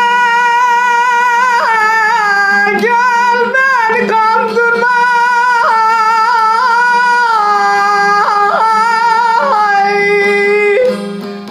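Solo voice singing a Turkish uzun hava in free rhythm: long held high notes joined by quick slides and ornamented turns, over a steady low drone.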